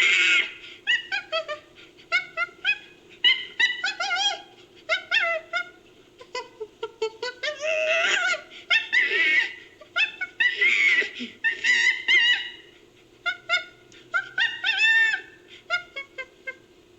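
Chimpanzee vocalisations edited into a creature sound effect: a long run of short hoots and squeals that bend up and down in pitch, with louder, longer screams about eight, nine and eleven seconds in.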